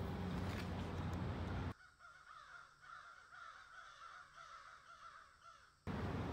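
Crows cawing in a quick run of repeated calls, cut in abruptly a couple of seconds in and cut off just as suddenly near the end. Before and after them there is a steady low rumble.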